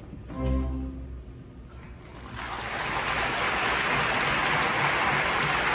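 The orchestra's closing chord of the aria sounds and fades, then theatre audience applause swells from about two seconds in and carries on steadily.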